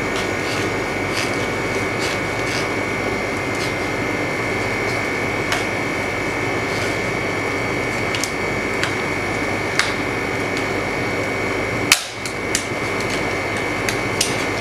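LCD freezer separator machine running with a steady hum and a high whine from its cooling unit. Scattered light clicks and taps come from the frozen screen glass being handled and pried in the chamber, with one sharper click about twelve seconds in.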